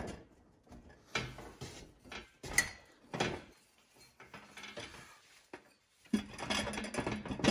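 Stainless steel exhaust header tube handled and set into a steel welding fixture: scattered metal clinks and scrapes, a sharp clack about two and a half seconds in, and a longer stretch of scraping near the end as the tube end is slid onto the fixture's flange.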